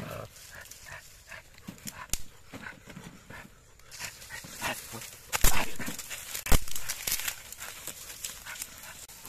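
Dry twigs and grass being handled and laid over a banana leaf: irregular rustling, crackling and small snaps, with two sharp cracks about five and a half and six and a half seconds in.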